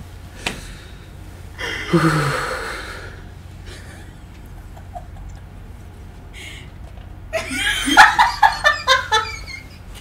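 A long, deep exhale about two seconds in, then a short burst of a woman laughing near the end.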